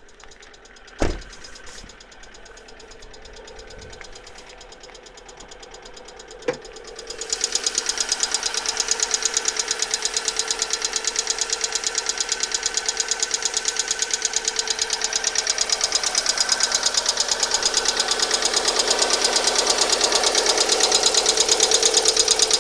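Alfa Romeo 147's 1.6 Twin Spark engine running with a rapid, even knocking from the valve gear, the sign of failing hydraulic lifters that was cured by replacing all 16. It is fainter at first, with two sharp thumps, and becomes much louder about seven seconds in.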